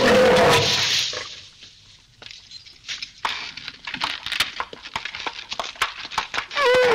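A donkey braying on an old film soundtrack: a bray ends with a falling tone in the first second. Scattered knocks and clicks follow, and a new bray starts near the end, its pitch dropping.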